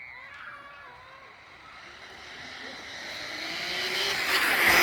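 Direct-drive 3D-printed RC drag car on a fast run, its electric motor whining and tyres hissing as it approaches, growing steadily louder and passing close near the end.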